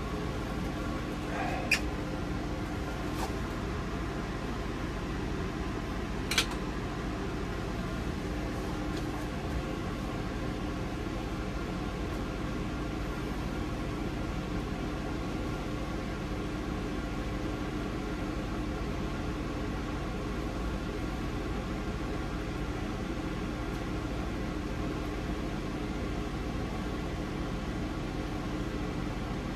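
Steady hum of a fan running inside a small fish house, with two sharp clicks, one about two seconds in and one about six seconds in.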